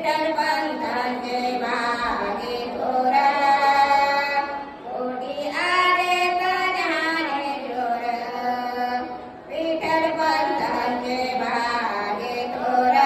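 Elderly woman singing a Marathi abhang (devotional song) unaccompanied in long, held melodic phrases, pausing briefly twice between lines.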